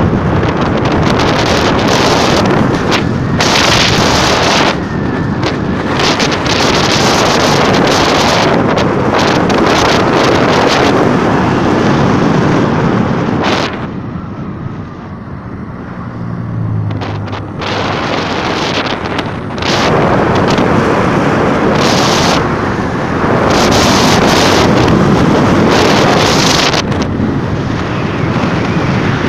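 Wind buffeting the phone's microphone on a moving vehicle, loud and gusty throughout. Midway it drops for a few seconds, and the low hum of the vehicle's engine shows through before the wind noise comes back.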